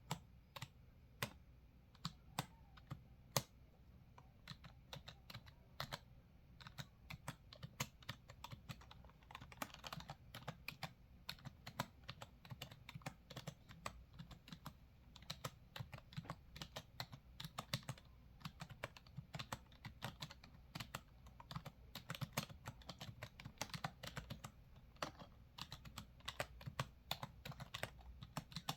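Computer keyboard typing: a few separate key presses in the first seconds, then a fast, continuous run of keystrokes.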